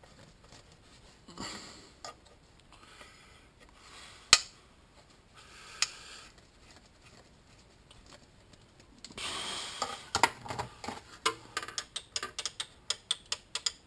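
Small hard plastic clicks and rattles of power window switches and the console switch panel being handled and fitted: a sharp single click about four seconds in, another near six seconds, then a rapid irregular run of clicks over the last few seconds.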